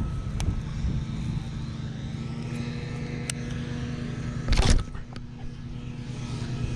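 Wind buffeting the microphone, a steady low rumble under a faint constant hum. A short loud gust-like rush about four and a half seconds in.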